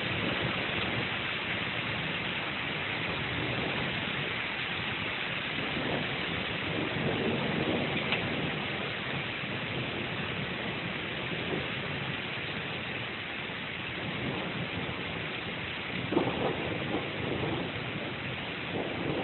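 Steady rain during a thunderstorm, with low thunder rumbles swelling a few seconds in and a sudden, louder crack about sixteen seconds in.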